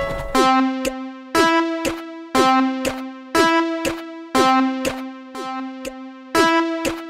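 Electronic synthesizer loop: a sustained two-note synth tone struck with a deep thud about once a second, with a lighter hit in between each beat.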